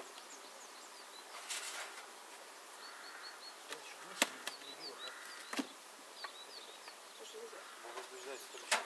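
Honeybees buzzing around open wooden hives, with a few sharp clacks and knocks as hive parts are handled.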